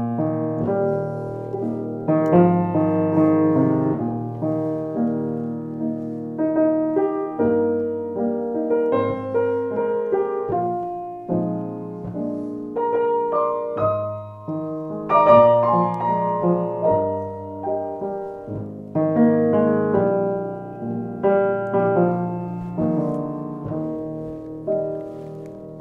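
A fully restored 1909 Bechstein model A grand piano, about 6 ft 1 in long, being played: a continuous passage of chords and melody, with notes struck and left to ring.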